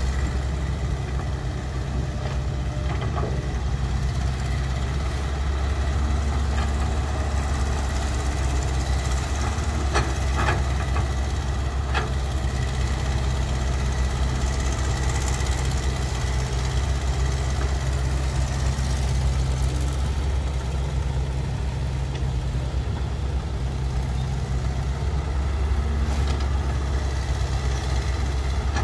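Diesel engines of a hydraulic excavator and dump trucks running steadily while the excavator loads a truck. A few sharp knocks come about ten and twelve seconds in.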